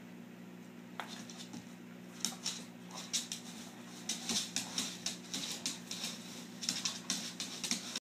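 A dog's claws clicking and scrabbling on a hardwood floor as it pulls at a tug toy. The quick, irregular clicks and scuffs start about two seconds in and come thickest in the second half.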